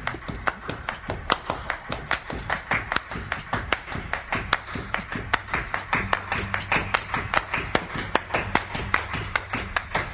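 Background music made of a fast, even run of hand claps and percussive taps, several a second, over low sustained bass notes.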